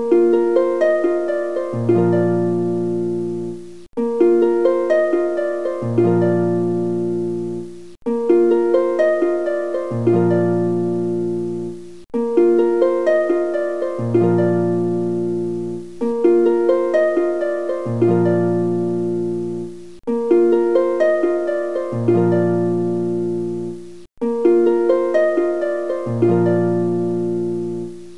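Background music: a plucked-string melody over bass notes, a short phrase of about four seconds looped over and over with a brief break between repeats.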